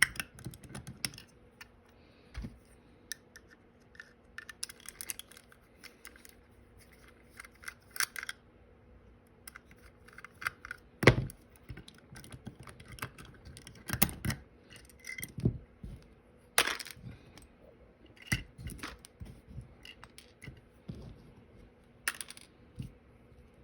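Small metal tools scraping, prying and tapping at a die-cast toy truck cab during disassembly: scattered clicks and scratches with a few sharper knocks.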